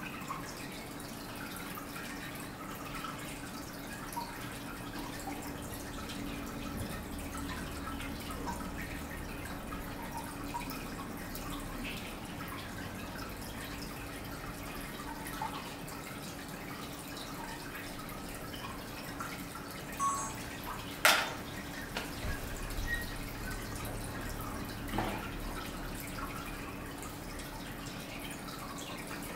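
Faint water dripping in scattered small drops over a steady low hum, with one sharp click about two-thirds of the way through.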